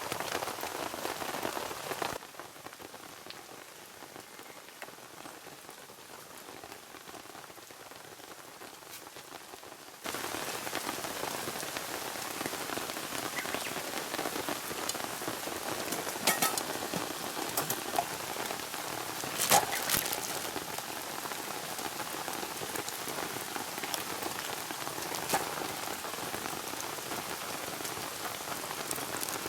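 Steady rain falling on surfaces, with a few louder sharp ticks scattered through. The rain drops to a softer level about two seconds in, then steps back up to its full level suddenly about ten seconds in.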